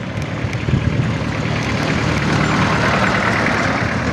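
A motor vehicle's engine running, with a rushing noise that swells and grows louder about two to three seconds in.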